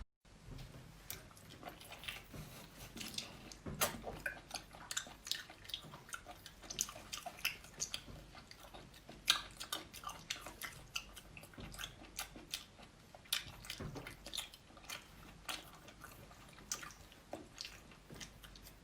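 Close-miked eating sounds of a person chewing and biting seafood: irregular wet smacks and small clicks throughout.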